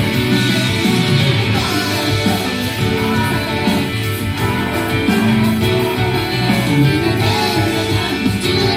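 Japanese idol pop song from a live stage performance, with guitar prominent in the mix and little or no singing.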